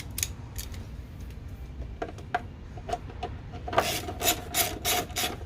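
Scattered clicks and knocks, then near the end a quick run of rasping strokes, about four a second: a ratchet spanner being worked to wind in a bolt holding the car's washer bottle.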